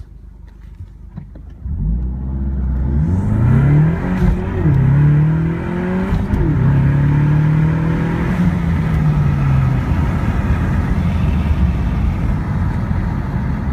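2015 Ford Mustang EcoBoost's turbocharged 2.3-litre four-cylinder engine, heard from inside the cabin, making a full-throttle 0-60 mph run: it sits near idle, launches hard about two seconds in, and revs up through the gears with two quick drops in pitch at the gear changes. Near ten seconds the driver lifts off and the engine note falls away, leaving steady road and engine rumble.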